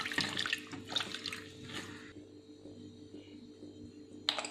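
Hand splashing and rubbing dried mackerel pieces in water in a stainless steel bowl for about two seconds, then quieter; a short sharp sound near the end.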